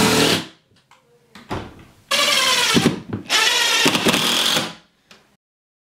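DeWalt cordless impact driver driving screws through a floating-shelf bracket into the wall. It runs in bursts: one stops just after the start, a short one comes about a second and a half in, then two longer runs with the motor pitch rising and falling, stopping about five seconds in.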